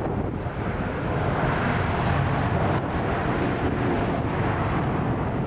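Airbus A350 jet engines at low taxi thrust: a steady rushing jet noise, a little louder in the middle.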